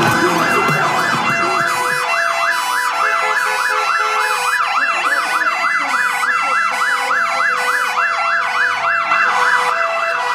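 Ambulance siren in a fast yelp, sweeping up and down about four times a second over a steadier tone.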